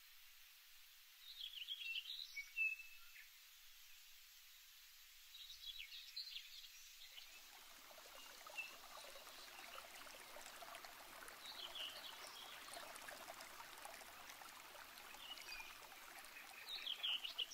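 Faint outdoor birdsong, short chirping phrases every few seconds. From about seven seconds in, a steady rushing noise joins it and runs on under the song.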